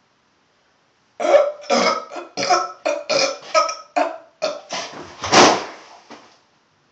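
A boy burping a rapid string of about a dozen short burps, ending with a longer one, brought up by chugging a carbonated Diet Coke.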